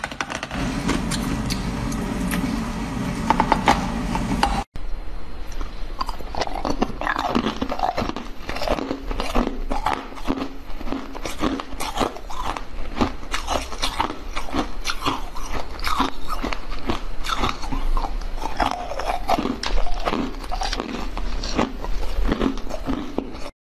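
Close-miked ASMR eating: teeth biting and crunching through frozen ice treats, first a green basil-seed ice block, then after an abrupt cut a run of dense, irregular crunches and chewing on frozen molded treats.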